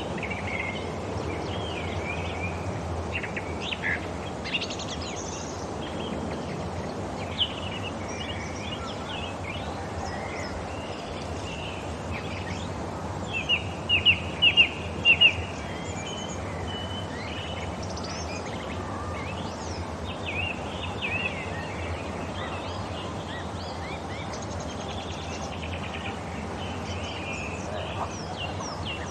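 Several wild birds chirping and calling over a steady outdoor background hiss, with a quick run of about five loud chirps about halfway through.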